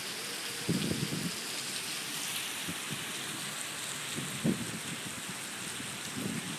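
Heavy rain falling steadily on a paved plaza, heard as an even hiss. A few brief low bumps stand out, about a second in and again about four and a half seconds in.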